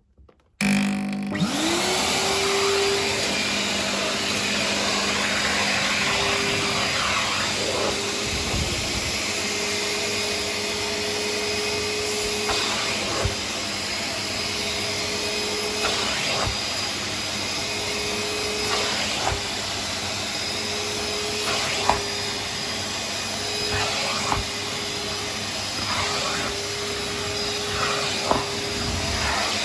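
Numatic George wet-and-dry vacuum cleaner switched on about half a second in, its motor spinning up over about a second and then running steadily. A whining tone drops in and out every second or two, with occasional light knocks as the wet tool is worked.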